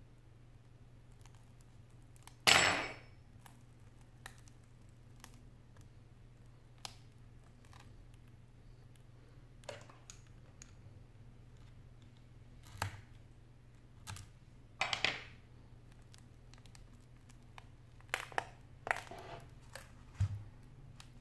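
Cracked touchscreen glass of an iPad 4 being pried and lifted off its frame with a metal pick: scattered scrapes, crackles and clicks of glass, adhesive and tool. The loudest is a scrape about two and a half seconds in, with a cluster of clicks near the end.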